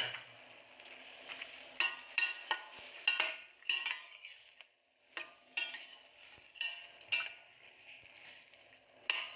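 Metal spatula stirring and scraping vegetables and shrimp around a stainless steel pan in irregular strokes, over a faint sizzle of frying. The stirring stops for a moment about halfway through.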